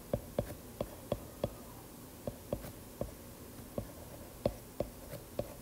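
Stylus tapping and clicking on a tablet's glass screen during handwriting: faint, irregular short clicks, a few each second.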